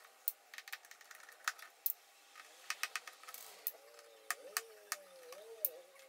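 Faint, irregular small clicks and ticks of a screwdriver working the screws that hold a unibody iMac's LCD panel, with light metal-on-metal taps as the driver tip seats and turns.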